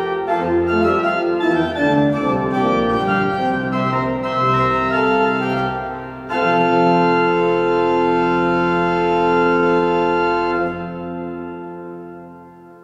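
Ladegast pipe organ played: a moving passage of chords ends about six seconds in on a loud held final chord, which is released near the end and dies away in the cathedral's long echo.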